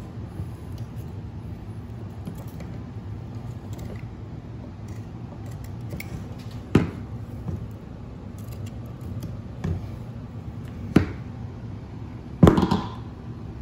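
Knife work on a deer's antlered skull plate: quiet trimming of meat from the bone, broken by a few sharp knocks as the antlers and knife strike the work table. The loudest knock comes about a second before the end, as the rack is lifted and moved. A steady low hum sits underneath.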